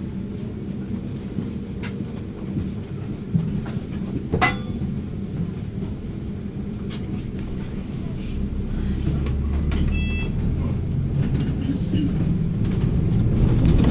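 Inside the upper deck of a London double-decker bus: steady engine and road rumble, growing louder and deeper in the second half as the bus drives on, with a couple of sharp clicks and a brief beeping tone about ten seconds in.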